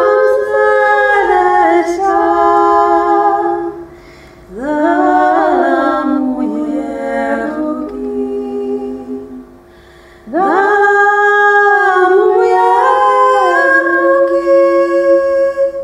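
A cappella female singing, one woman's voice layered in several parts on a loop pedal, holding long notes in harmony. It comes in three phrases with short breaks about four and ten seconds in, the later two opening with an upward swoop.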